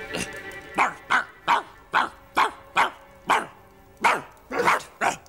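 Dog barking repeatedly: about ten short barks in a row, over faint background music.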